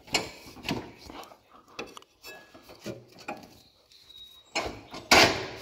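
Hand-handling noises of a rubber V-belt being worked onto a garden tractor's tiller drive pulley: scattered light knocks and rubs of belt on metal, with a louder rustle about five seconds in.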